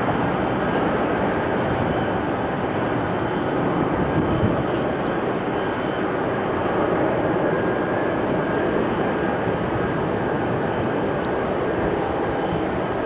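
Airbus A320-232's IAE V2500 jet engines running as the airliner taxis and turns, a steady distant rumble with a faint, steady high whine over it.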